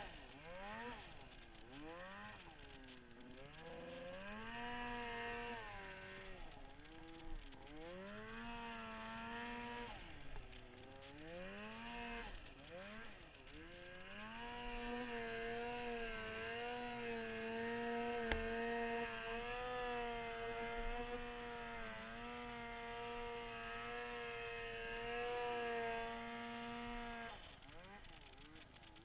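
Snowmobile's two-stroke engine revving through deep powder: the revs rise and fall over and over for the first half, then hold high and fairly steady for a long stretch before dropping away near the end.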